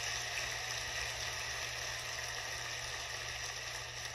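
Large congregation applauding, an even clatter that slowly dies down, heard from a television's speaker over a steady low hum.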